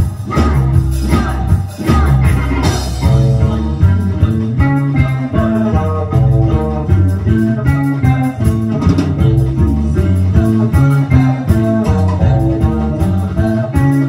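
Live band playing a mostly instrumental passage: electric guitars and bass guitar over a steady beat, with melodica and accordion holding melody notes.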